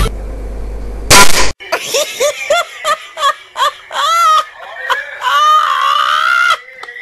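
A loud, short blast about a second in, followed by a person's voice in a quick run of short rising-and-falling cries and then one longer wavering cry.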